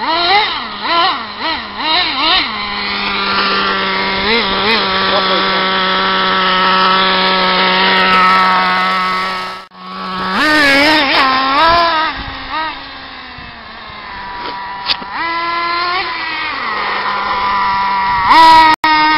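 Traxxas Rustler RC stadium truck's motor whining, its pitch rising and falling as the throttle is worked, on a run at half throttle. The whine cuts out briefly about ten seconds in, then starts again.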